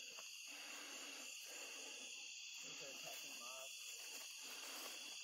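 Steady chorus of insects chirring in the grass, with a faint short wavering call about three seconds in.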